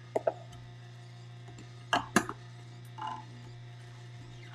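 Omega MM900 slow masticating juicer running with a steady low hum while kale is fed in, with a few sharp knocks and clatters from the plunger pushing the leaves down the feed chute. The loudest is a pair of knocks about two seconds in.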